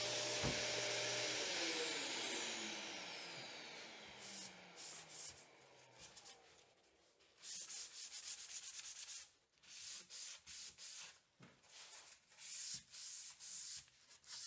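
An electric orbital sander winding down after being switched off, its whine falling in pitch and fading over about four seconds. From about seven seconds in comes quick back-and-forth hand sanding with a foam sanding pad on a sanding-sealer-coated wood door, several strokes a second in short runs.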